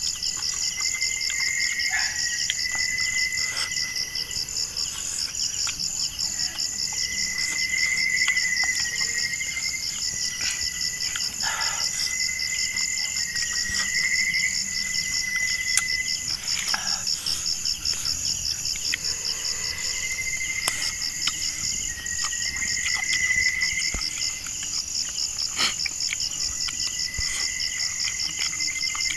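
Night insects calling, with crickets making a continuous, rapidly pulsing high trill. A second, lower chirring call starts and stops every few seconds over it, and a few faint clicks are scattered through.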